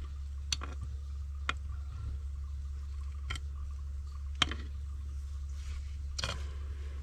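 A metal bar poking and scraping into a drain pipe opening full of crusted grease and soap scum, giving a few sharp clicks against the pipe, the loudest about four and a half seconds in, and a short scrape near the end, over a steady low hum.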